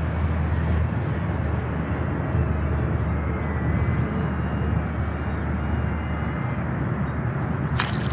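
Faint high whine of the KFPLAN KF603 micro RC flying boat's twin brushed motors and propellers, wavering in pitch with the throttle, over a steady low rumble. Near the end there are a few sharp noises as the plane drops onto the water.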